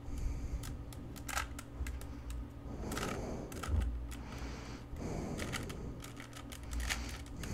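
Plastic Rubik's cube being twisted quickly by hand: a run of irregular clicks and clacks as its layers turn.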